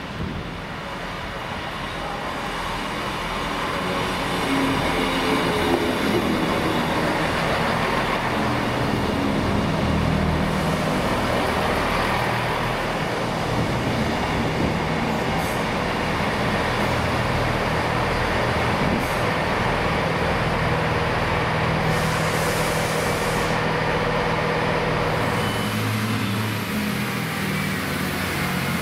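Diesel train running through the station: wheel-on-rail noise and a low engine note build over the first few seconds, then hold steady. A faint rising whine comes in near the end.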